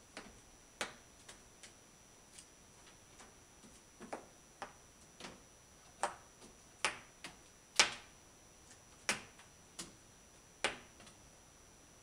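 Light, sharp clicks and taps at irregular intervals, about twenty in all, from a cat-teaser wand toy, its toy bird and stick knocking against a cot while being played with. The loudest tap comes about eight seconds in.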